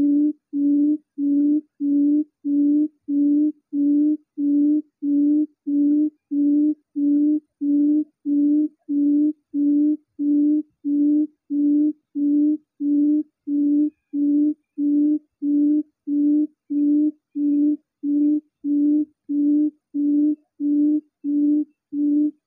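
Recorded quail call played on loop through a Bluetooth speaker as a trap lure: one low hoot repeated about twice a second, each note the same length and evenly spaced.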